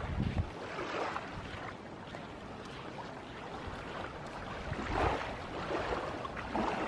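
Small sea waves washing onto the shore, with wind buffeting the microphone in the first moment.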